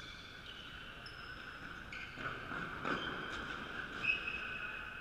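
Faint, echoing ambience of a large indoor sports hall with distant players on a wooden court. Thin high squeaking tones come and go, and there is a brief louder stretch about halfway through.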